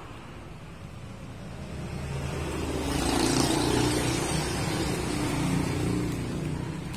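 A motor vehicle's engine passing by, growing louder about two seconds in and fading again near the end.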